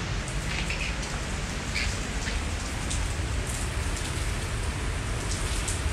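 Steady rain falling on a wet veranda floor and roof, with scattered drops ticking.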